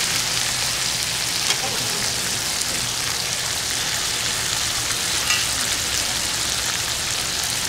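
Chicken sizzling steadily on a grate over a wood fire, pressed flat under a cast-iron skillet. Two light metal clicks from tongs come about a second and a half in and again past five seconds.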